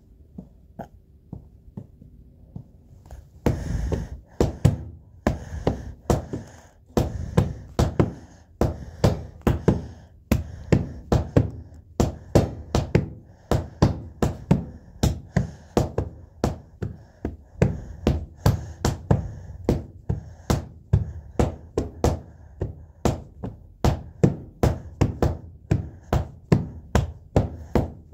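Rhythmic knocking, about two sharp knocks a second, beginning a few seconds in and keeping a steady beat.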